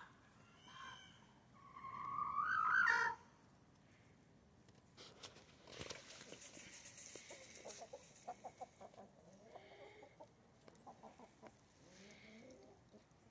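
Mottled Brahma chickens calling: a loud call rising in pitch about two seconds in, lasting over a second, then a run of soft, quick clucks. A brief rustle comes about five seconds in.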